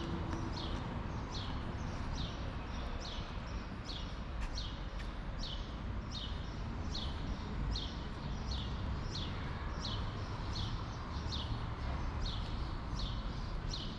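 Pedestrian crossing signal chirping: short, high, downward-sweeping chirps repeating evenly about twice a second, over a steady low rumble of street noise.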